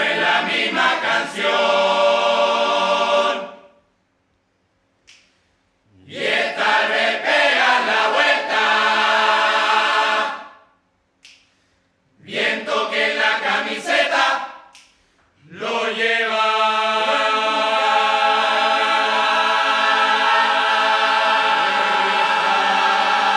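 Men's murga chorus singing a cappella in four phrases, each breaking off sharply into a short silence; the last phrase is a long held chord.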